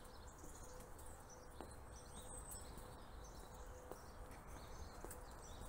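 Faint birdsong: scattered thin, high chirps over a quiet outdoor hush, with a few soft footsteps.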